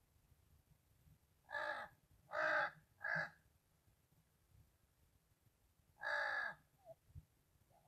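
Crow cawing: three harsh caws in quick succession, then a fourth after a pause of about three seconds.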